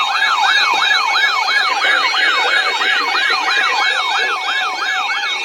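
Broadcast emergency alert attention signal: a loud, siren-like tone of rapid up-and-down sweeps, about three a second, over steady high tones, marking the start of a new severe thunderstorm warning bulletin.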